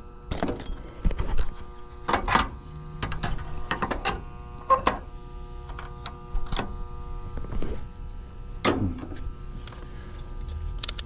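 Irregular clicks and knocks of hands and tools working on an air-conditioning unit, over a steady electrical hum.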